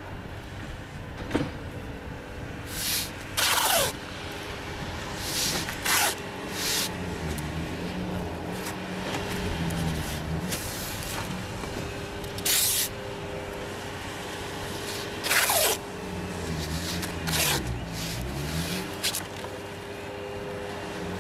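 Filament tape ripped off the roll in short, loud tearing pulls, about eight times, as it is laid along foam coping. Under it a diesel skid steer loader's engine runs, its pitch dipping and rising twice.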